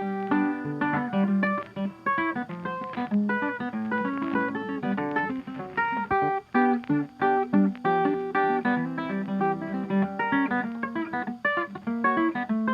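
Background music: a busy acoustic guitar piece of quick plucked and strummed notes.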